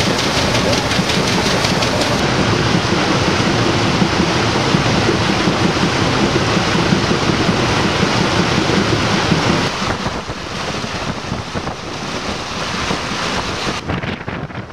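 Steam paddle boat under way: loud, steady rush of churned water and wind, which drops to quieter wind buffeting the microphone about ten seconds in.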